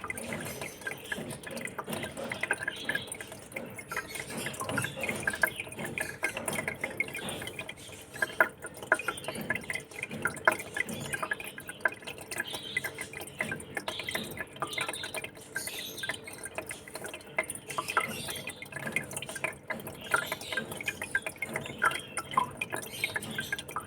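Water in a home aquarium trickling and dripping, a steady run of many small, irregular plinks and splashes.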